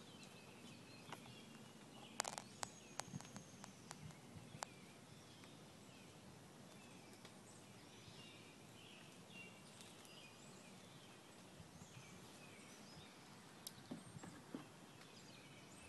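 Faint outdoor pond ambience with scattered soft high chirps, and a quick run of sharp clicks about two to four seconds in, with a few more near the end.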